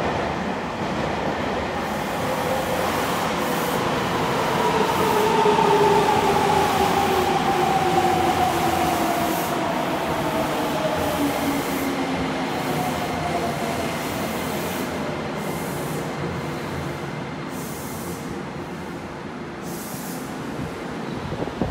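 A Nagoya subway N3000-series electric train pulls into an underground platform and brakes. Its motor whine glides steadily down in pitch as it slows, over a rumble of wheels on rail that is loudest about six to eight seconds in and eases off toward the end.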